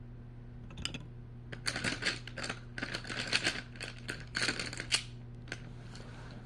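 Coloured pencils clattering and clicking against each other and a jar as they are handled. A dense run of clicks starts about a second in and stops near five seconds, with one last click shortly after.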